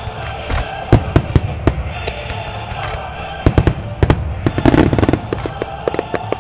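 Starmine fireworks barrage: aerial shells bursting with sharp bangs. A few separate reports come about a second in, then a dense run of rapid bangs from about three and a half to five seconds, with scattered bangs after.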